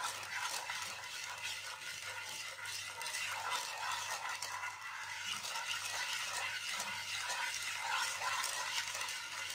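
Wooden spatula stirring sugar, water and food colouring in a non-stick frying pan: a continuous scraping and swishing against the pan bottom as the undissolved sugar is worked around. A faint steady low hum runs underneath.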